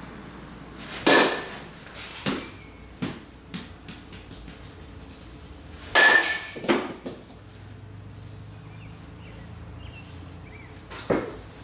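Metal baseball bat hitting baseballs three times, about five seconds apart, each hit a sharp ping with a short ring. Each hit is followed by a few lighter knocks as the ball strikes the cage and bounces.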